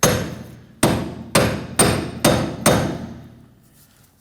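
Six hammer blows on a Ford Transit Connect's rear wheel hub and bearing assembly, each with a short metallic ring. The blows are struck to knock the hub loose where it is stuck on. The first two come almost a second apart, then they speed up to about two a second, and they stop well before the end.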